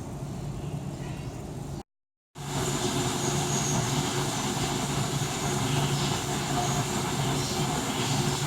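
Steady rushing noise with a low, constant mechanical hum under it, dropping out completely for half a second about two seconds in.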